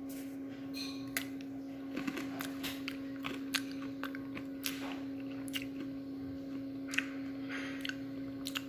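A person crunching and chewing a Temptations cat treat: a run of small, irregular crisp crunches over a steady low hum.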